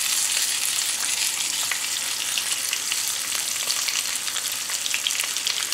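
Flour-dusted rainbow trout and char frying in hot fat in a grill pan: a steady sizzling hiss with small crackles and pops.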